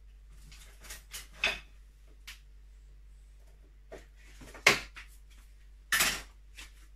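Scattered knocks and clatter of kitchen things being handled: several light taps, a sharp knock about two thirds in, and a longer clatter near the end.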